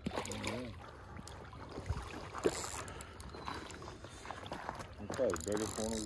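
Indistinct talking, a voice near the start and again near the end, with scattered light clicks and knocks between.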